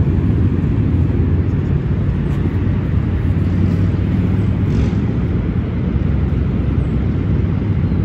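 A steady, loud low rumble of outdoor background noise with no clear events in it.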